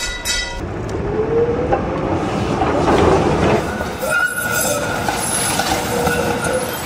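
Tram running on its rails, its wheels rumbling, with steel-wheel squeal as drawn-out tones: one rising about a second in, another held steady over the second half.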